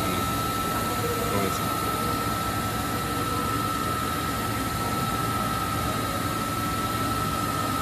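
Mikron UCP 800 Duro five-axis machining center running, a steady hum with a constant high whine, while its trunnion table tilts on the swivel axis.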